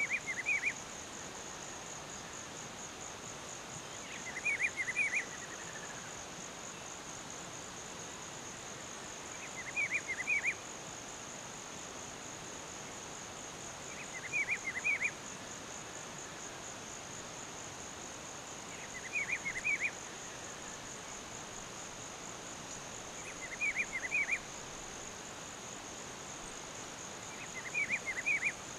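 Rufous-browed peppershrike (pitiguari) singing a short phrase of three or four quick notes, repeated seven times about five seconds apart, over a steady high insect buzz.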